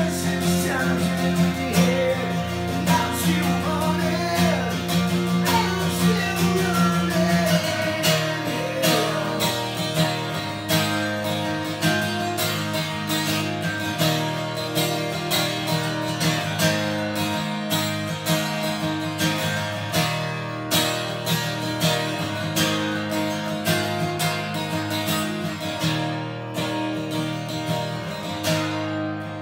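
Acoustic guitar strummed, with a man singing over it for the first several seconds; after that the guitar carries on alone, strummed in a steady rhythm.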